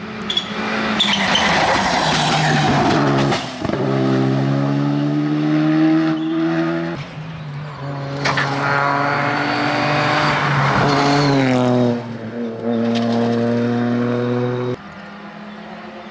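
Rally cars at racing speed on a tarmac stage, one after another: loud engines revving hard, their pitch stepping up and down with gear changes and falling away at about 11 to 12 s. The sound switches abruptly from one car to the next at about 7 s and again near 15 s, where it turns quieter.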